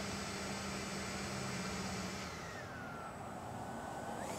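80mm electric ducted fan of an RC jet whining at low throttle; about halfway through its pitch sags, then near the end it climbs sharply as the throttle opens for the takeoff run.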